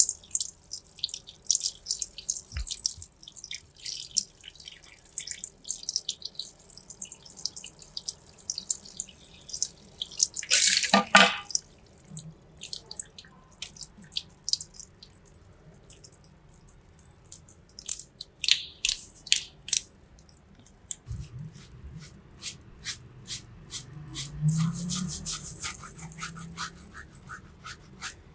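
Close-up wet clicking and tapping of hands working on wet skin during a face massage, then fingers scrubbing shampoo lather in hair, with one brief loud hiss about ten seconds in.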